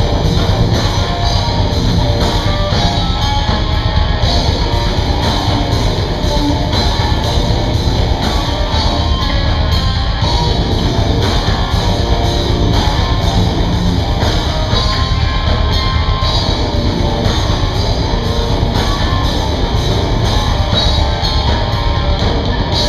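A rock band playing live: guitars and a drum kit, with no singing.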